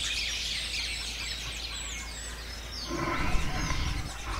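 Birds chirping and twittering with many short, high calls, as a background sound effect. About three seconds in a lower, rougher sound joins.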